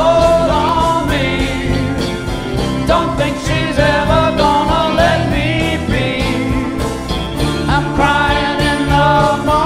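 Live band playing a song: drum kit with cymbals, electric bass and guitars, with a bending melody line over the top.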